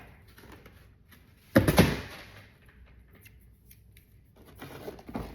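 Handling thumps: a sharp double knock about a second and a half in, as something hard is set down or bumped, then faint rustling of packaging near the end.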